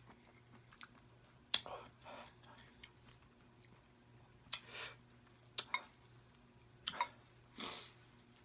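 Faint, close-miked chewing of spicy instant noodles, with small wet mouth sounds and a few sharp clicks.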